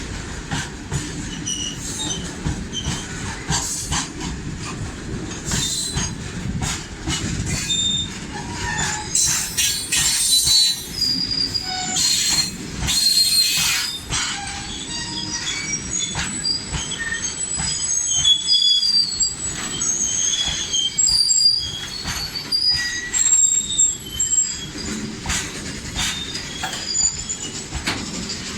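Indian Railways freight train passing, its wagon wheels squealing in many short high-pitched screeches over a steady low rumble, with sharp clicks from the wheels on the rails.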